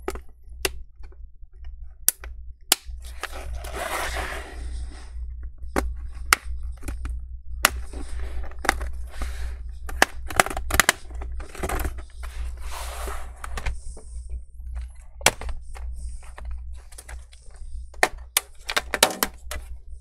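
Plastic snap clips of an HP 15 laptop's bottom cover popping loose one after another as a pry tool is worked along the seam. Sharp snaps are scattered throughout, with several stretches of plastic scraping in between.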